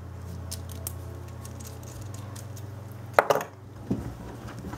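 Light clicks and taps of small metal coax connector adapters being handled, with a sharper, louder clatter about three seconds in, over a steady low hum that stops soon after.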